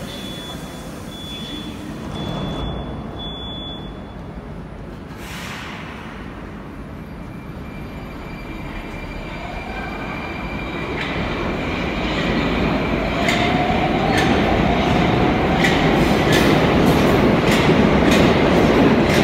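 Moscow Metro 81-760/761 'Oka' train leaving a station. Repeated high door-warning beeps at first, a short burst as the doors close about five seconds in, then a rising whine from the drive and a growing rumble with wheel clicks over the rail joints as it pulls away, getting louder toward the end.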